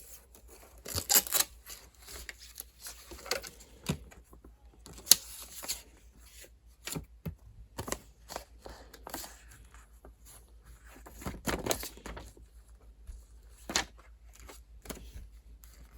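Packaging being handled and unwrapped: irregular rustles, tearing and light knocks, a dozen or so short bursts.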